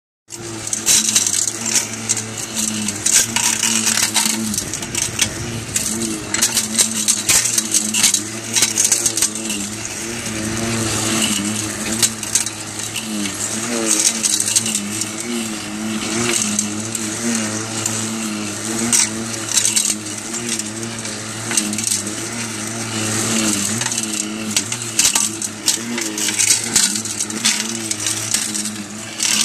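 Tractor engine running steadily while a hydraulically driven under-vine rotary mower head spins through dry grass and soil. A dense, irregular crackle of sharp metallic clicks rides over the hum as the cutter flings grit and small stones against its housing.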